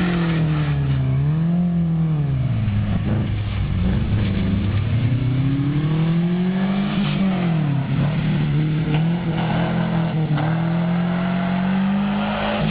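Rally car engine driven hard, its pitch climbing under acceleration and dropping off several times as the driver lifts and changes gear.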